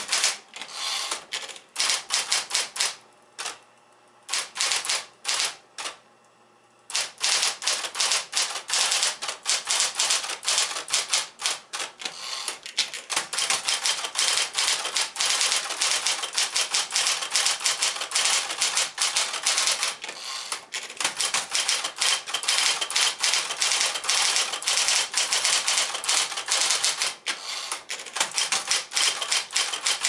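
Sears Medalist Electric 12 electric portable typewriter, a Smith-Corona 5TE mechanism, being typed on: fast runs of sharp typebar strikes, with two short pauses in the first several seconds, then a continuous stream of keystrokes.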